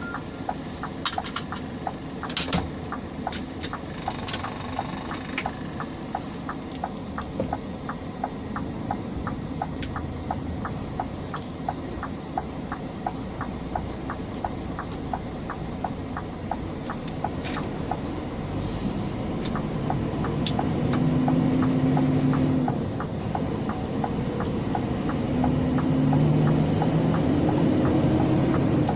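Scania G460 truck's 13-litre inline-six diesel running, heard from inside the cab while driving slowly, with a light ticking about twice a second through the middle. In the last third the engine pulls harder and gets louder with a deeper drone.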